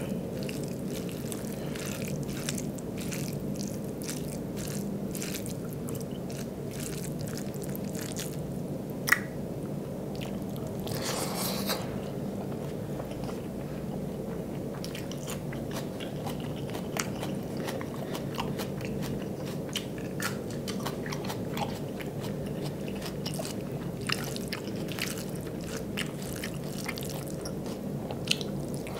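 Close-miked eating sounds: chewing and wet mouth clicks, along with rice and dal being squished and mixed by hand on a plate. A steady low hum runs underneath, with one sharper click about nine seconds in.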